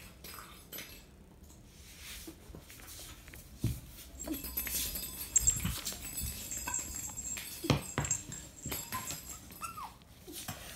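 A pet cat playing: scattered light knocks and scuffs, with a brief high squeak near the end.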